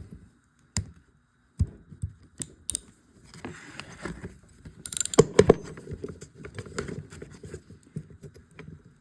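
Irregular clicks, clinks and scrapes of hand tools and metal parts being handled on a workbench, with a few sharper metal knocks about five seconds in.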